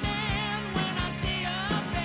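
A song playing: a wavering sung voice over a band with steady bass tones and a regular drum beat.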